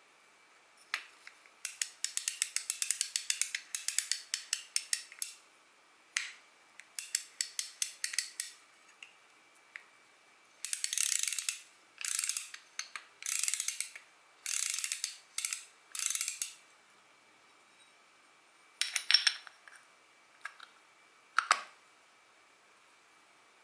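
Daiwa spinning reel being worked by hand, giving bursts of rapid ratchet-like clicking that last one to three seconds, with a few single sharp clicks between them.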